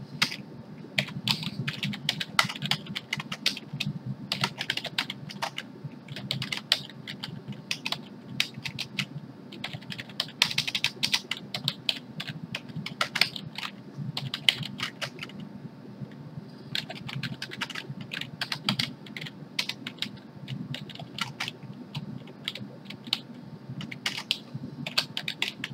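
Typing on a computer keyboard: quick runs of keystrokes broken by short pauses, with a longer pause a little past the middle.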